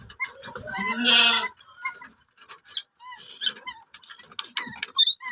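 Little cormorants calling while being fed: one longer call about a second in, followed by many short, repeated calls.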